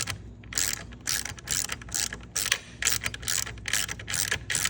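Ratcheting 10mm wrench clicking in quick, even strokes, about two to three a second, backing out a Loctited bolt through two M6 nuts jammed together on it.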